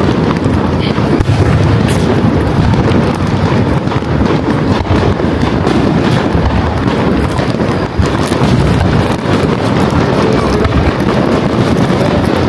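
Wind buffeting the microphone: a loud, steady, rough rumble.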